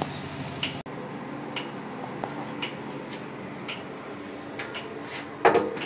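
Milk tank refrigeration unit running with a steady hum, crossed by a sharp light tick about once a second.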